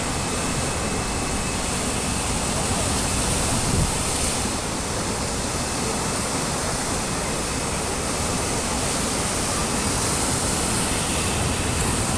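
Sea waves surging, a steady dense wash of surf.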